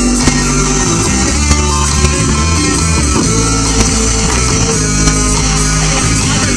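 A live rock band playing, loud distorted electric guitar over bass and drums.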